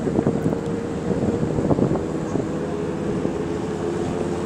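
Boat engine running steadily, with wind noise buffeting the microphone.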